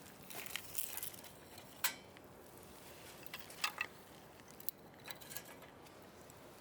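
Light clinks and knocks of metal cookware and utensils being handled, with a sharper ringing clink about two seconds in and a quick few more a little later.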